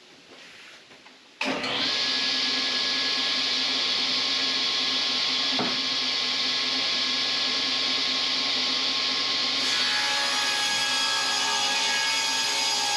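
Powermatic cabinet table saw switched on about a second and a half in, its motor and blade running with a steady whine and hiss. A little past halfway the sound turns harsher and busier as the blade begins ripping a long board to width.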